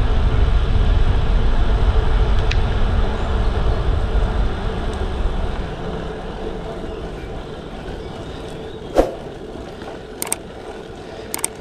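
Wind rumbling on the microphone of a bicycle riding at speed, with tyre noise on the road, dying down about halfway through as the bike slows into a climb. A few sharp clicks come near the end.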